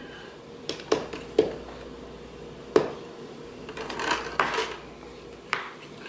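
Several short, sharp knocks and clicks of objects being handled on a work table, the sharpest about three seconds in, with a brief scuffing noise around four seconds in.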